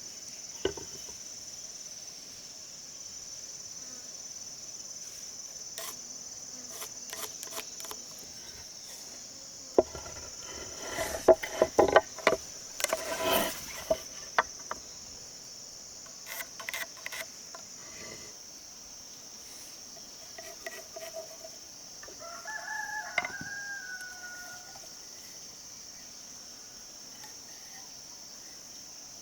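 A steady high buzz of insects runs throughout. About ten to fourteen seconds in there is a cluster of sharp knocks and clatter, the loudest part. About 22 seconds in, a rooster crows once, a call of about two and a half seconds that dips at the end.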